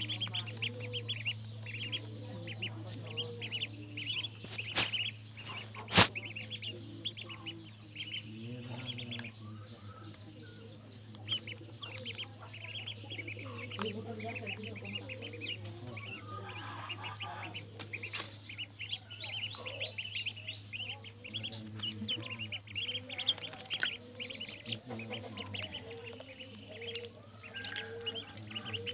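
Ducklings peeping in quick, short, high chirps throughout. A steady low hum stops about nine seconds in, and there is one sharp click about six seconds in.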